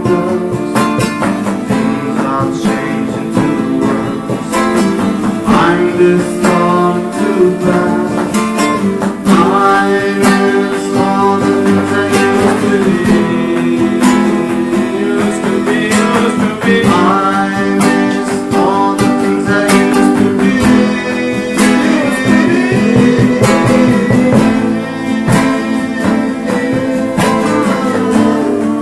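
Instrumental passage of a rock song: plucked and strummed guitars with a melodic lead line over drums.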